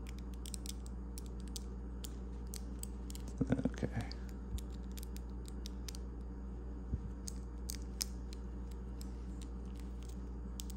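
Small 3D-printed plastic parts of a WDT tool clicking and creaking as fingers press them together and seat them, with a cluster of crackling clicks about three and a half seconds in and scattered small ticks elsewhere, over a steady low hum.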